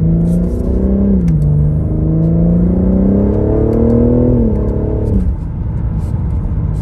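BMW M3 Competition's twin-turbo straight-six (S58) accelerating hard under part throttle, heard from inside the cabin. The engine pitch rises, dips at upshifts about a second in and again near four seconds, and falls away a little after five seconds as the pull ends.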